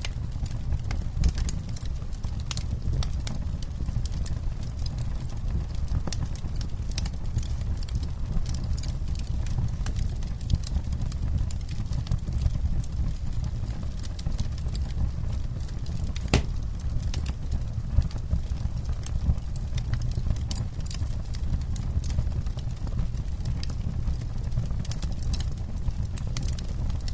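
Campfire burning, the wood crackling with many irregular sharp pops and snaps over a steady low rumble.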